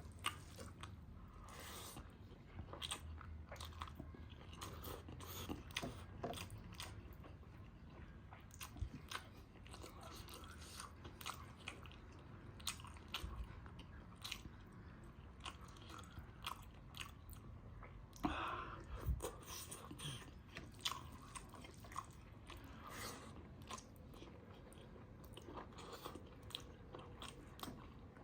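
Close-up eating sounds: a person biting and chewing food, with many small crunches and clicks and a louder stretch of crunching about two-thirds of the way through.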